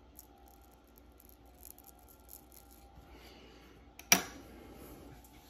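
Faint light ticks of watchmaker's tweezers and small tools at the bench, then a single sharp click about four seconds in.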